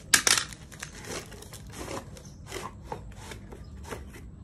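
Cardboard box and plastic-wrapped clock-kit parts rustling and rubbing as they are pushed back into the box. A loud crinkle comes just after the start, followed by scattered lighter rustles and clicks.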